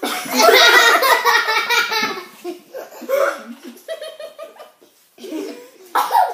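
Young girls laughing hard, loudest over the first two seconds, then trailing off into quieter giggles with another burst near the end.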